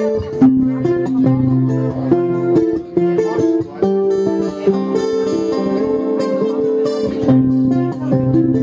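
Acoustic guitar music played live, the chords changing every second or so.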